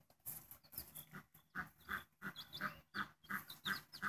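Mother hen clucking softly in short repeated notes, about two or three a second, with her chicks peeping high.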